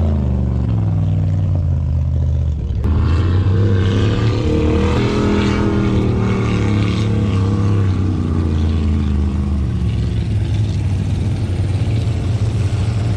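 Engine of a mud-bog truck running. About three seconds in it revs up, the pitch climbing and then falling back over several seconds before settling into a steady run.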